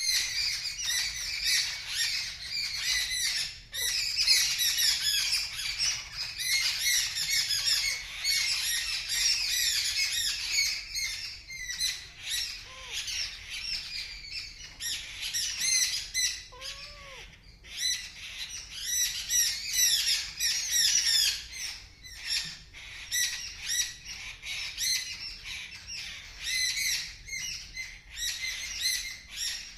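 A flock of small birds calling loudly and without pause: many rapid, overlapping, high-pitched squawks and chirps, the sort of alarm calling that birds raise at a cat.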